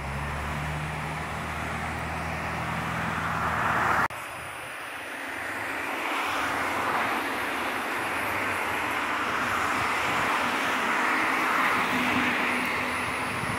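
A motor vehicle's engine running nearby with a steady low hum, growing louder, then cut off abruptly about four seconds in. After that, a steady rushing outdoor noise with slow swells, with no engine hum.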